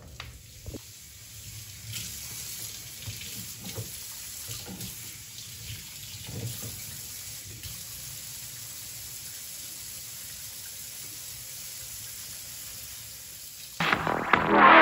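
Kitchen faucet running into a sink, a steady splashing hiss with a few small knocks and splashes. Electronic music comes in loudly near the end.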